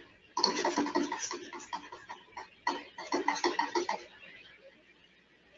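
A man's voice speaking in two short phrases over a quiet background.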